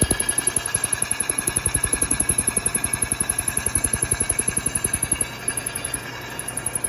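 Bridgeport milling machine running, heard with a rapid, even fluttering pulse that the uploader did not hear in person and puts down to the recording. The fluttering drops off and the sound turns quieter about five seconds in.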